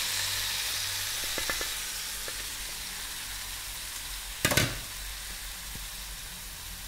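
Raw chicken and tomatoes sizzling in a hot frying pan with onion masala, the hiss slowly dying down. A few light clicks come about a second and a half in, and one sharp knock comes a little past the middle.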